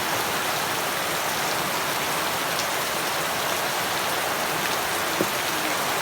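Steady heavy rain falling on surfaces, a dense even hiss with one faint tap about five seconds in.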